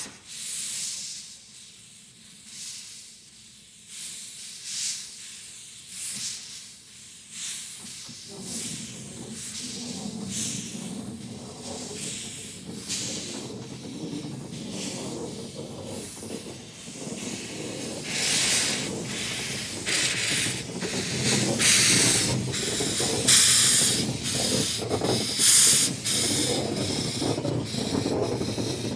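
Orenstein & Koppel 0-4-0 steam locomotive working with its cylinder drain cocks open: rhythmic bursts of steam hiss, one every second or two at first, over a low rumble. About two-thirds of the way through the bursts grow louder and come closer together.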